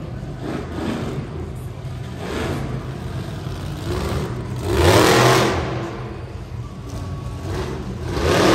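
Monster truck engine revving as it drives across the arena floor, with two loud surges of throttle, one about halfway through and one near the end.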